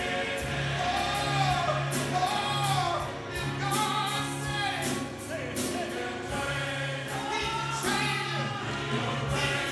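Church choir singing gospel music, with sustained low instrumental notes and frequent percussive strikes beneath the voices.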